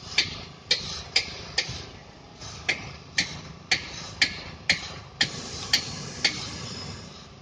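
Sharp, regular knocking, about twelve hard strikes at roughly two a second, with a short pause about two seconds in.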